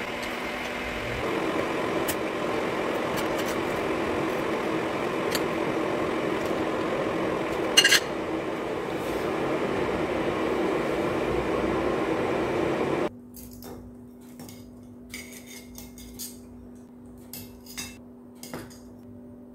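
A steady hiss over a low hum, with a short loud clink about 8 seconds in, cuts off suddenly about 13 seconds in. A quieter stretch follows with a faint hum and scattered light clinks of utensils against dishes.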